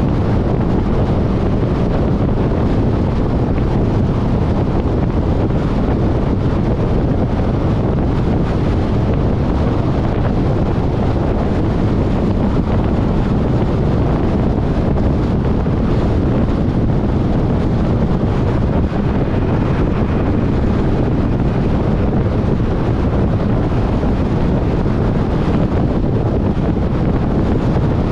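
Steady wind and road noise of a car driving at highway speed, heavy at the low end and unchanging throughout.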